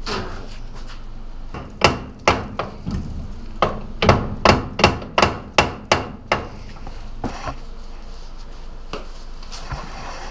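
Hammer blows on a car's rear brake assembly, tapping the wheel studs through to free the brake drum and backing plate. About a dozen quick sharp strikes come in a burst starting about two seconds in, then two light taps.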